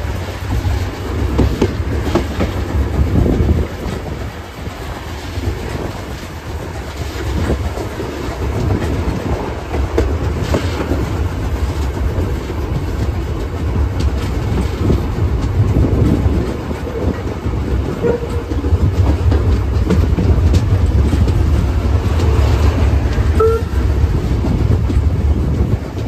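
Steam-hauled heritage passenger train running on the line, heard from an open coach verandah: a steady low rumble of the coaches with wheels clattering over the rail joints. A couple of brief squeaks sound in the second half.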